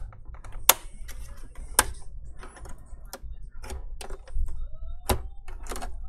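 A screwdriver and the plastic and metal parts of an all-in-one PC's screen assembly being handled, making irregular light clicks and taps. Two sharp clicks come within the first two seconds, and another comes about five seconds in.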